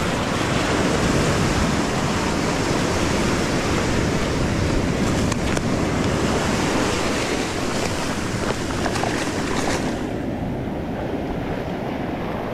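Shallow beach surf washing in over the sand, a steady rushing hiss that grows quieter in its upper part near the end.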